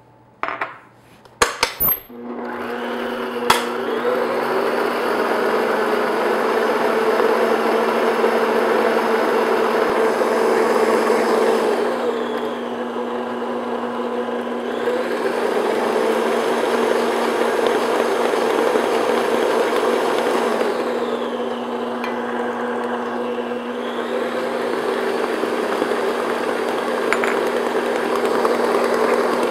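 A few sharp clicks and knocks, then a stand mixer's motor starts about two seconds in and runs steadily with a constant hum, its beater working eggs into a thick butter and cream cheese batter. The motor slows twice and picks up again, once near the middle and once about two thirds of the way through.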